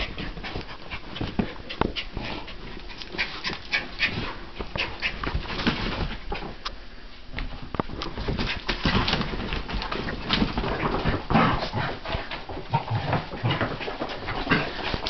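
A basset hound and a Jack Russell terrier tussling together: dog vocal noises over a busy run of scuffling knocks, easing off for a moment partway through.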